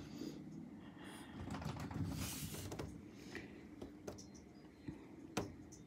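Faint handling noise from a phone held to a window: soft rustling with scattered small clicks, a louder rustle about two seconds in, and one sharp click near the end.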